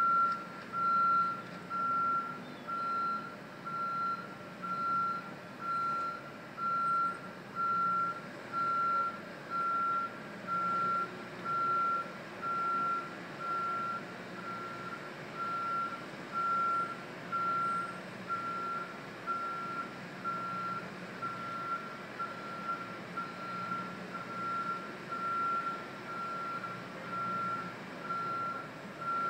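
Back-up alarm on construction equipment beeping on one steady pitch, about one beep a second without pause, over a low engine hum.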